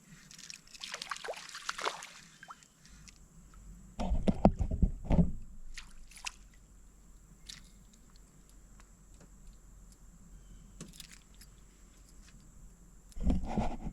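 Water sloshing and knocks in a small fishing boat while a small bream is landed and handled. A noisy spell of splashing comes early, loud bumps follow around four to five seconds in, scattered small clicks come between, and another loud bump falls near the end.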